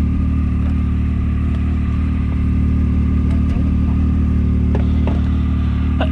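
Can-Am Maverick X3 RC side-by-side's engine running at a steady speed while driving, with a few light rattles.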